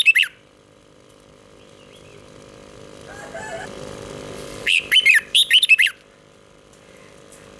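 Red-whiskered bulbul singing: the end of one phrase of quick, warbling whistled notes at the very start, then a full phrase of a little over a second about five seconds in. A faint steady hum runs underneath.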